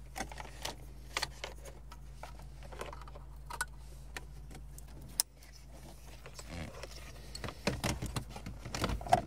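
Plastic wiring connectors being plugged into the back of a Lexus CT200h's dash-top display screen, and the screen handled and set back into its mount: scattered small clicks and rattles, busier near the end.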